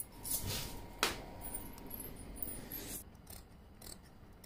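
Large tailoring shears and satin lining fabric being handled to start a cut: the cloth rustles, with a sharp click about a second in and fainter ticks later.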